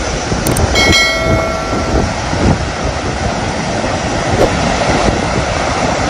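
Sea surf breaking and washing up a sandy beach in a steady rush. About a second in, a short bell-like chime rings out and fades over about a second.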